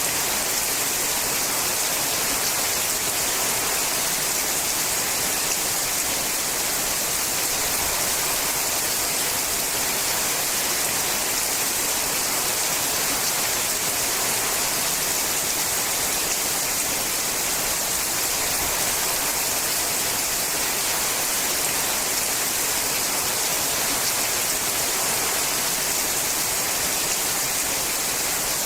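Steady rain falling on a sheet-metal roof, a dense, even hiss without separate drops standing out.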